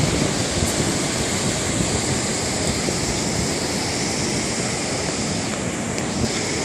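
Steady wash of ocean surf breaking along the coast, with wind noise mixed in.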